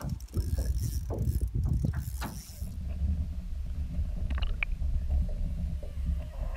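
Spinning reel being cranked to bring in a fish, with an irregular mechanical clicking. About two and a half seconds in, the sound turns to a steady, muffled low rumble as the microphone goes under the water.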